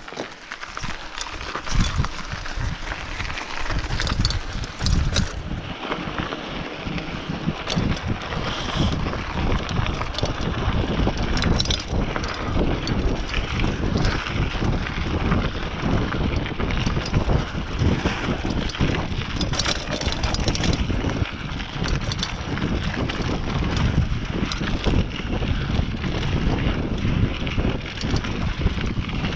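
Mountain bike riding fast down a dirt trail: tyres rolling and crunching over dirt and small stones, the bike rattling and clicking over bumps, with wind rumbling on the microphone.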